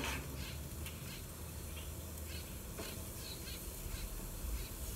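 Burger patties sizzling on a grill, a steady quiet hiss, with a few faint short bird calls and a light tap about three seconds in.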